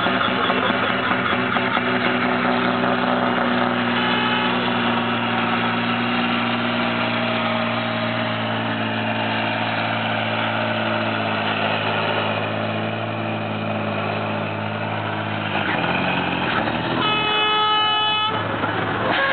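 Volvo BM tractor's diesel engine running hard under load, pulling the weight sled, with its note dropping about sixteen seconds in. A horn sounds briefly about four seconds in and again for over a second near the end.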